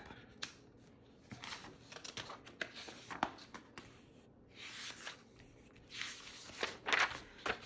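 Sheets of paper being lifted and slid across a desk: scattered rustles and soft clicks, the loudest a little before the end.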